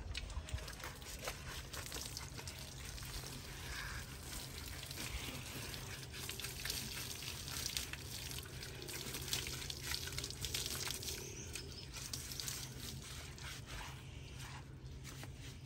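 Water poured from a plastic mug splashing over a bull's back and dripping onto wet ground, in repeated pours and splashes.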